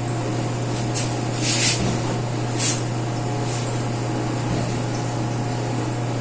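A steady low electrical hum, with four short, high hissing sounds in the first few seconds.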